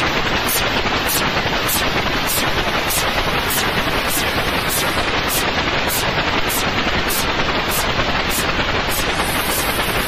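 Steady white noise: an even hiss spread across all pitches, with no change in level.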